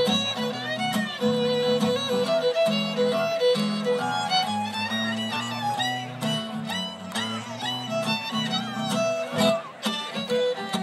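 Fiddle and acoustic guitar playing the instrumental introduction to a folk song, the fiddle carrying the melody over guitar chords.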